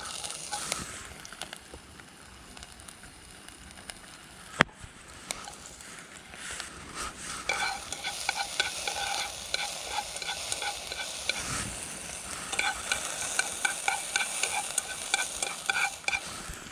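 Food sizzling in a pan over a campfire, with a utensil stirring and scraping the metal pan in quick, squeaky strokes from about eight seconds in, and a single sharp click about four and a half seconds in.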